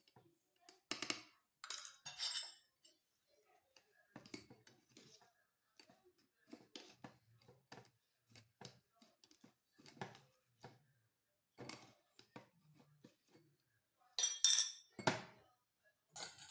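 Kitchen utensils clinking and scraping against a strainer and bowl as grated red onion is pressed to squeeze out its juice. Short, irregular clinks and scrapes, with louder bunches about a second in and again near the end.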